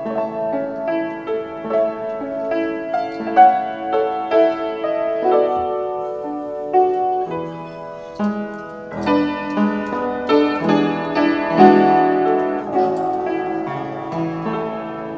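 Piano music: a melody over chords, thinning briefly about eight seconds in, then coming back fuller.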